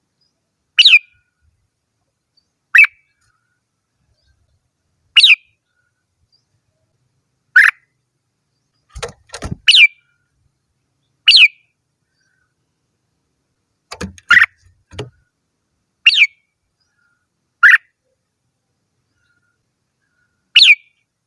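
Red-whiskered bulbul giving short, sharp whistled calls, about ten in all, roughly one every two seconds with silence between. A few soft low knocks fall in the middle.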